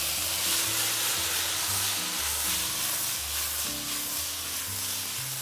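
Linguine sizzling in a frying pan of hot olive oil with caramelised garlic and chili flakes as it is stirred and tossed.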